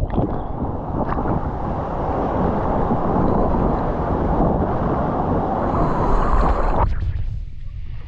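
Steady rushing roar of a waterfall's falling water, with wind buffeting the microphone. About seven seconds in, the water noise drops away abruptly, leaving a low rumble.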